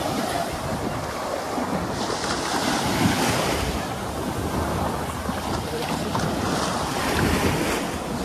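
Ocean surf washing onto the beach, with wind buffeting the microphone. The wash swells about two seconds in and again near the end.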